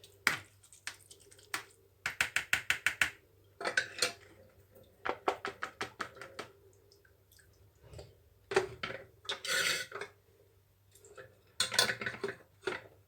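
Pot, strainer and utensils clinking and knocking while a lemon infusion is strained. About two seconds in comes a quick run of about eight taps, and scattered knocks follow through the rest.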